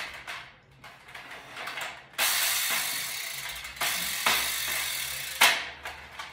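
Plastic Nerf blaster being handled and worked, with sharp mechanical clicks. About two seconds in a loud, steady rushing noise starts, fades slowly, and ends with a sharp click about five and a half seconds in.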